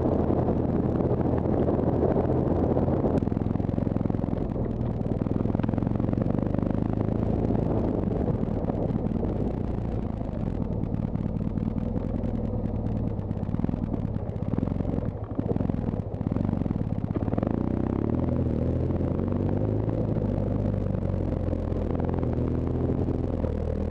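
BMW R1200GS boxer-twin engine running under way on a dirt trail, its note shifting up and down in the second half, with wind noise on the microphone.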